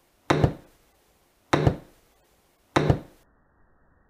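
Three sharp impacts about a second and a quarter apart, each a quick double hit: a golf club striking a ball off an artificial-turf hitting mat.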